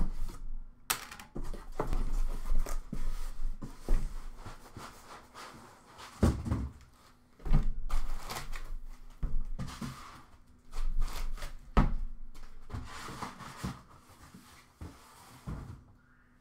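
Cardboard shipping carton and foam packing inserts being handled: scraping, rustling and irregular knocks as a boxed set of trading cards is unpacked and set down, with the loudest thumps about six, seven and a half and twelve seconds in.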